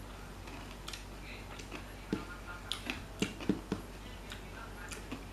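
Eating at close range: a person chewing fried fish with lip smacks, a cluster of short sharp clicks between about two and four seconds in.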